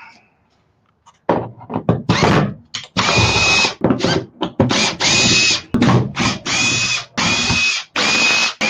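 Power drill backing screws out of a wooden workpiece, run in a series of short bursts, each with a steady motor whine, starting about a second in.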